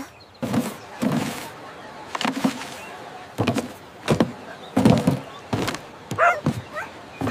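Cartoon sound effects: a string of light knocks and hollow thuds, roughly one every half second to second, as litter is dropped into a plastic trash bin.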